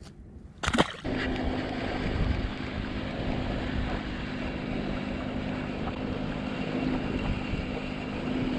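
A boat motor runs steadily, starting about a second in right after a brief loud whoosh, with wind noise on the microphone.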